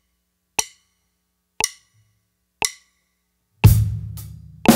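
Four short count-in clicks one per second, at 60 beats per minute, then about three and a half seconds in a drum kit groove starts: a bass drum and cymbal hit on the first beat, followed by hi-hat and snare strokes about half a second apart.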